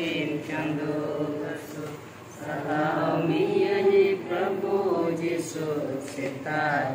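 A group of voices chanting a Christian prayer hymn together, in long sustained phrases, with a short break about two seconds in.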